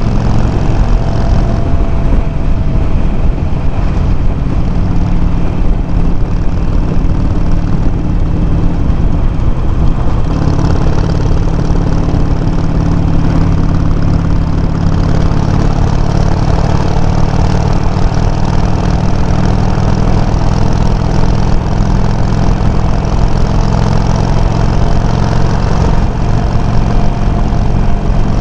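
Harley-Davidson Sportster 883's air-cooled V-twin engine running steadily through aftermarket Customer slip-on mufflers with the low baffle fitted, picked up by a microphone mounted on the bike. The note shifts slightly about ten seconds in.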